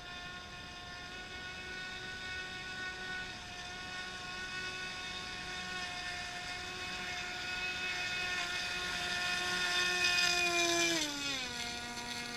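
Radio-controlled model boat's motor whining at a steady high pitch, growing louder as the boat approaches, then dropping in pitch as it speeds past close by about eleven seconds in.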